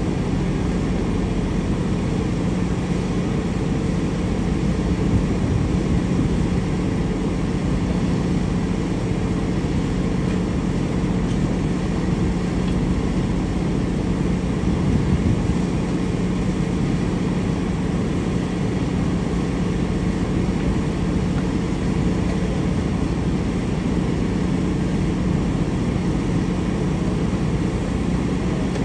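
A steady engine drone that holds one pitch throughout, with a constant hum over a low rumble.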